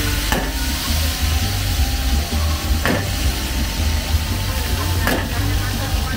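Oil sizzling in a large wok as a cook stirs the frying ingredients with a long metal spatula. The spatula scrapes against the wok three times.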